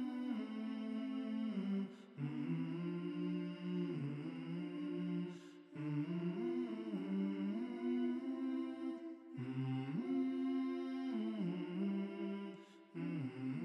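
Background music of hummed voices in harmony: slow, held chords with gliding notes, in phrases that break off every few seconds.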